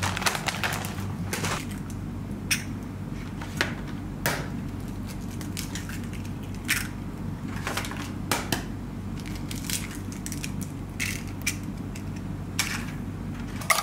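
Eggs being cracked into a ceramic bowl: a series of sharp cracks and taps of shell, spaced a second or two apart, over a steady low hum. A brief cluster of rustling clicks at the start, as grated cheese is shaken from a plastic bag.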